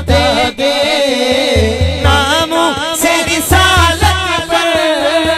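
Male voice singing a naat, a Punjabi-Urdu devotional song, drawing out long ornamented notes over a regular low beat.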